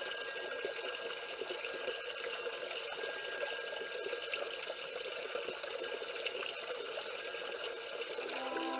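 Water of a small cascade splashing and running over river stones, a steady rushing and trickling. Soft sustained music tones come in near the end.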